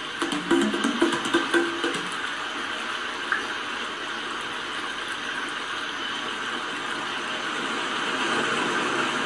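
A steady hissing, rushing noise, with a few short pitched musical notes in the first two seconds.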